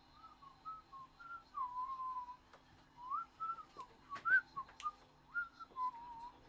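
A person whistling a wandering tune in short sliding notes, with a few sharp clicks and knocks about three to five seconds in.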